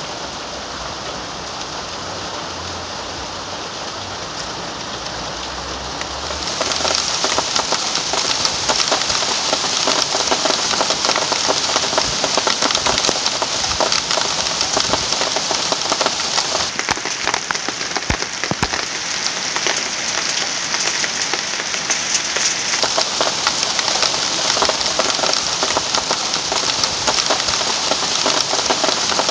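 Sleet and small hail pellets falling on pavement, parked cars and roofs: a dense, steady pattering of countless fine ticks. About six seconds in it turns suddenly louder and denser.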